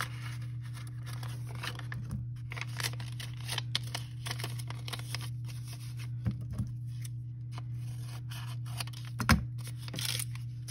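Sheets of paper rustling and crinkling as they are handled and folded, with a few soft taps on the table, the loudest about nine seconds in. A steady low hum runs underneath.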